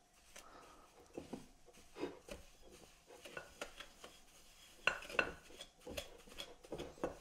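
Wooden spoon creaming butter and sugar in a ceramic mixing bowl: soft, irregular scrapes and knocks of the spoon against the bowl, a few louder ones about five seconds in.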